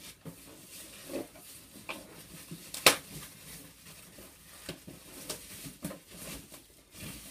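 Polystyrene and cardboard TV packaging being handled and lifted out of a box: scattered rustles, creaks and light knocks, with one sharp knock about three seconds in.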